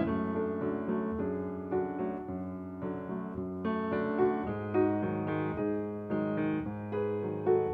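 Piano music, one note following another in a flowing melody.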